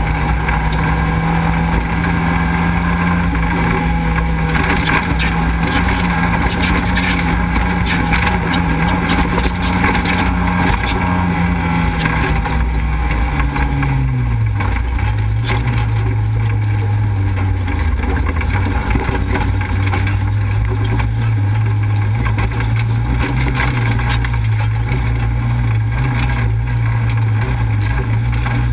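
Off-road race vehicle's engine running hard as it drives a dirt track, heard from on board, with a rough rushing road noise under it. About twelve seconds in, the engine note falls over a couple of seconds and then holds lower.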